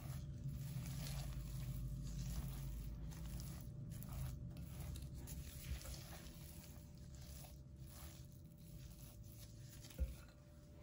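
Silicone spatula mashing and folding a thick crushed-Oreo and cream-cheese mixture, scraping it around a glass bowl, with a sharp knock near the end.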